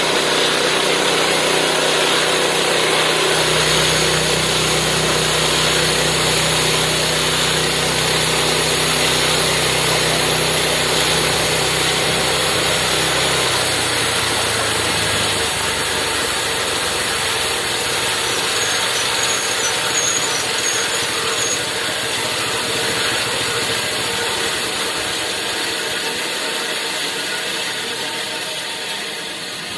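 Homemade bandsaw sawmill with its gas engine running and its band blade cutting through a pine log, a steady mechanical whir; the blade is dull and rusty but still cuts. The engine's deep hum drops away about halfway through while the cutting whir goes on, and the sound fades near the end.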